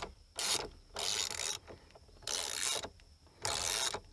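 Socket ratchet loosening the steering wheel's 17 mm centre bolt: four strokes of the ratchet, each about half a second, with short pauses between.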